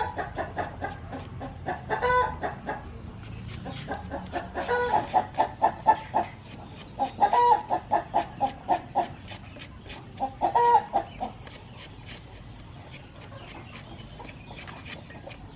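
Chickens clucking in runs of quick repeated calls, which stop about eleven seconds in. Under them are light, steady clicks and scrapes of a knife peeling a young watermelon.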